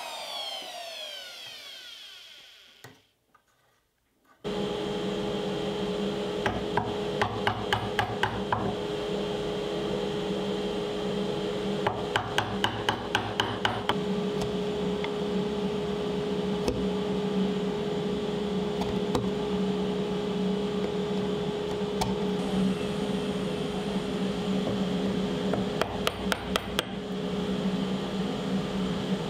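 A compact router winding down after being switched off, its whine falling in pitch and fading over about three seconds. After a short silence a steady hum sets in, and a chisel is struck with a mallet in three runs of quick taps, paring out a bowtie recess in walnut.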